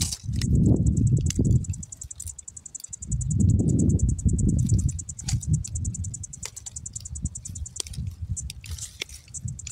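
Crickets chirping in a steady, fast pulsing trill. Twice, near the start and again about three to five seconds in, a louder low rumble, like wind buffeting or handling noise on the microphone, comes over it.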